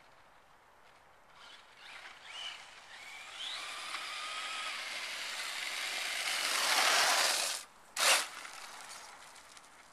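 Traxxas Slash 4x4 Ultimate RC truck driving on gritty asphalt: its brushless electric motor whines and rises in pitch with the throttle, and the tyres hiss on the sandy road. The sound grows louder as the truck comes close, cuts out briefly just before eight seconds in, then gives a short loud burst and fades.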